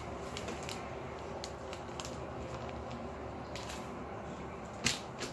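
Steady room hum with scattered light clicks and knocks as things are handled on a counter, and one sharp click, the loudest sound, near the end.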